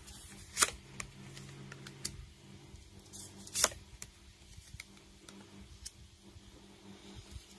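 Tarot cards being drawn and laid down on a table: a few soft clicks and snaps, the two loudest about half a second in and about three and a half seconds in, over a faint steady hum.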